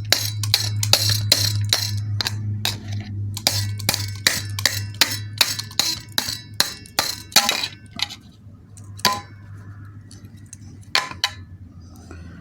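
Rapid clicking and clinking of small hard objects knocking together, several strikes a second, over a steady low hum. The hum fades about eight seconds in, and the clicks then become sparser.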